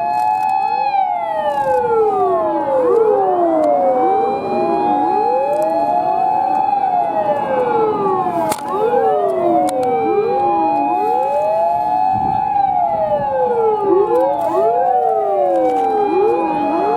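Sirens of a convoy of fire-service emergency vehicles sounding together, several at once and out of step. Each rises quickly to a held high note, then falls away slowly before starting again.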